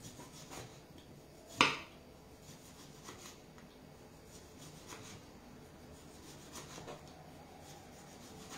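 A kitchen knife slicing a lemon on a wooden table: one sharp knock of the blade on the wood about a second and a half in, then scattered faint taps as more slices are cut.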